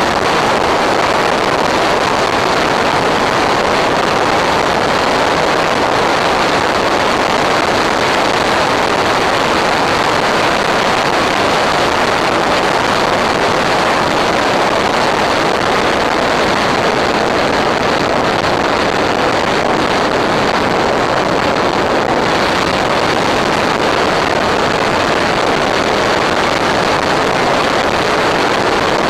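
Steady, loud rushing hiss on the onboard FPV recording of a Nano Skyhunter RC plane in flight, with no clear motor tone standing out.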